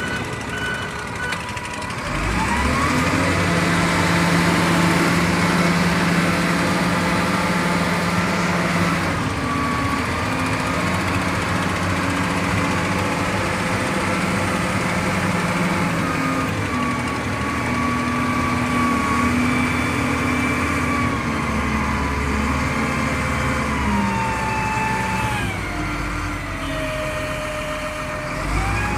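Wheel loader's diesel engine heard from inside the cab, picking up revs about two seconds in and running steadily under load with a whine above it. Near the end the pitch sags and then climbs again as the bucket is lifted.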